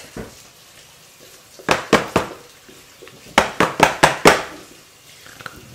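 A utensil clattering against a bowl: three short knocks about two seconds in, then a quick run of about six about a second later.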